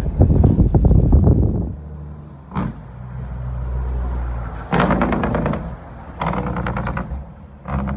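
Heavy truck's diesel engine running, with several loud bursts of rapid, machine-gun-like pulses between steadier low running, and a single sharp knock about two and a half seconds in.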